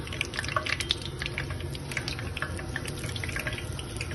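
Hot frying oil sizzling steadily in a pan, crackling with many small pops, as freshly fried sweet sesame patties drain in a mesh strainer held over it.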